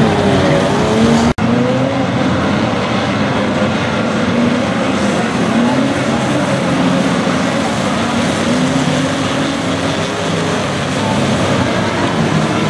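Engines of a pack of banger-racing stock cars running and revving on a short oval, several pitches rising and falling over one another above a steady noise. The sound cuts out briefly just over a second in.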